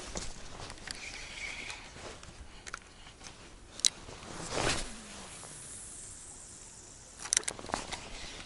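A cast with a spinning rod and reel: a sharp click, then a swish of the rod, line hissing off the spool for about two seconds, and a quick cluster of clicks near the end.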